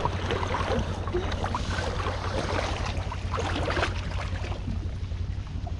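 Jet ski engine running steadily at low revs with a constant low hum, and water splashing against the hull.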